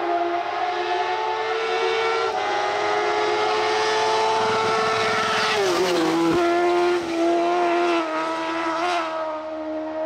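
Kart cross buggy's high-revving motorcycle engine running hard at high rpm with a steady high-pitched note. Its pitch falls sharply about five and a half seconds in, then holds at a lower note.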